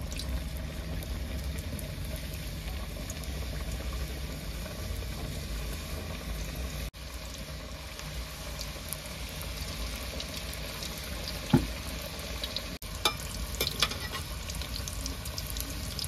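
Samosas deep-frying in hot oil in a kadhai: a steady sizzle with scattered small crackles and spatters. A sharp knock about two-thirds of the way through is the loudest sound.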